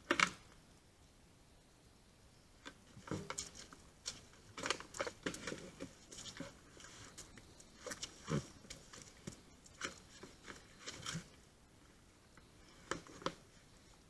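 A bear working at a bait barrel and a canister hung on a tree trunk: irregular knocks, scrapes and rustles, with two sharp knocks near the end.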